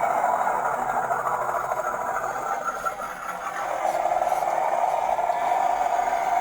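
WPL C44KM radio-controlled truck being driven, its running sound steady with a brief dip a little before four seconds in, then picking up again.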